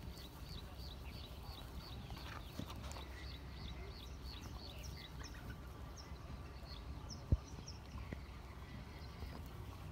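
Dogs gnawing on bones and scraps, with scattered small crunching clicks and one sharp crack about seven seconds in. A bird chirps rapidly, about three times a second, for the first few seconds, and a few higher chirps follow later.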